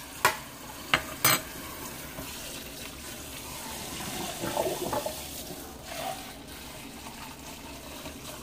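Kitchen tap running into a sink as a ceramic mug is rinsed out, with three sharp clinks of a spoon against the mug in the first second and a half.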